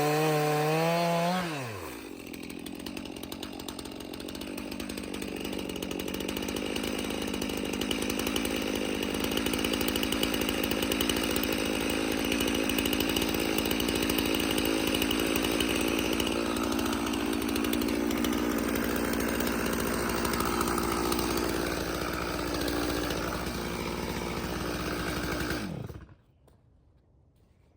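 Chainsaw at high revs, its pitch dropping about a second and a half in as it settles into a steady, heavier running sound, typical of the chain biting into a log. It cuts off abruptly near the end.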